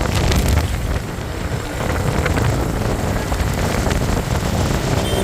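Heavy vehicle rumble with wind buffeting the microphone; no horn melody is heard.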